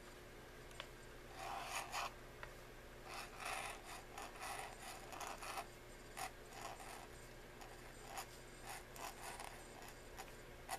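Pointed steel dip-pen nib scratching across paper in short, uneven strokes while writing calligraphy letters, over a faint steady hum.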